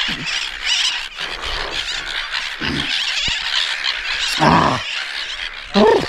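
A seabird nesting colony calling all at once: many high, shrill cries overlapping without a break. A few short, lower sounds stand out below them, the loudest about four and a half seconds in.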